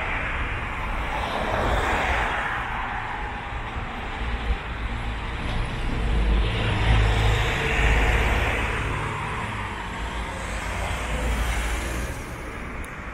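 Street traffic: vehicles pass one after another, swelling and fading. The loudest pass, with a deep rumble, comes about six to eight seconds in.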